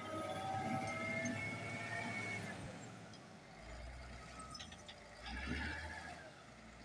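Caterpillar 966F wheel loader's diesel engine running, with a whine that wavers in pitch as the boom lifts the loaded bucket. Near the end come a few clicks and a short rush of noise as the bucket tips its load into a dump truck.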